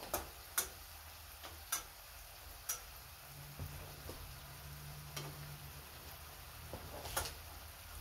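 A spatula clicking against a frying pan now and then, about six sharp taps, as food is turned and stirred in the pan.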